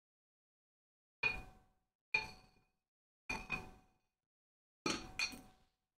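Small amber glass bottles and a glass dome clinking and knocking as they are set down on a wooden log slice: six short clinks with a brief ring, two single ones and then two pairs.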